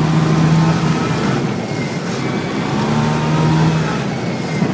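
ATV engine running under throttle, its note climbing twice and easing off between.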